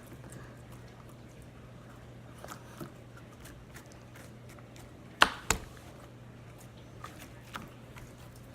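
Quiet handling noises over a steady low electrical hum, with two sharp clicks about a second apart roughly five seconds in.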